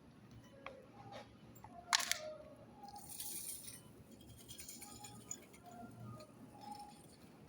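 Supermarket ambience: a sharp clatter about two seconds in, a brief hiss a second later, and a few light clicks over faint background music.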